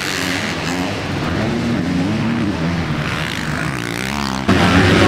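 Motocross bikes running on the track, the engine pitch rising and falling over and over as the throttle is worked. The sound steps up suddenly louder near the end.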